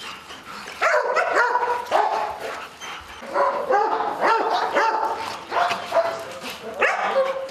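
Police detector dogs barking and yipping in repeated short calls, starting about a second in.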